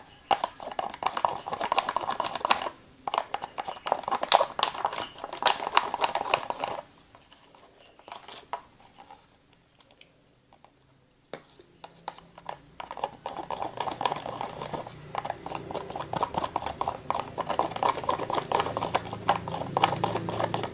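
Slime mixture of glue, dish soap, saline and laundry detergent being stirred in a container, a utensil clicking and scraping as the mix thickens. The stirring pauses about halfway, then resumes with a low hum underneath.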